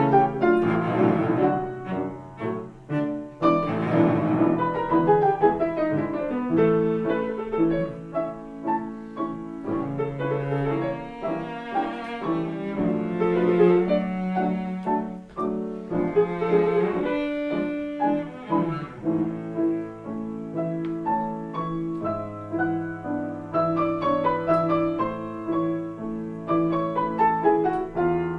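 Cello and piano playing a slow classical chamber movement, the cello holding long bowed notes over the piano. Near the end the cello stops and the piano carries on alone.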